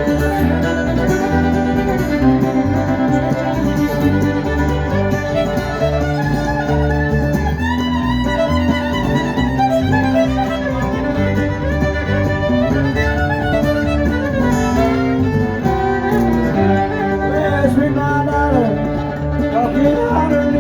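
Live bluegrass-style band playing an instrumental break with the fiddle carrying the lead over a steady bass line and strummed rhythm.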